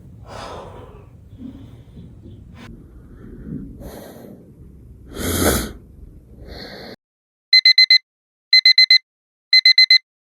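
Irregular rustling and breathy noises, loudest in a burst about five and a half seconds in. Then, near the end, an electronic alarm starts beeping in quick groups of four, about one group a second.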